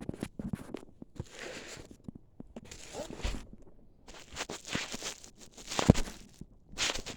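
Packaging and LiPo battery packs being handled: irregular rustling and crinkling with sharp clicks and knocks, the loudest knock about six seconds in.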